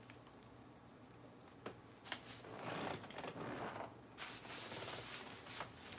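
Faint crunching of lettuce salad being chewed, coming in stretches through the second half, with a few light clicks.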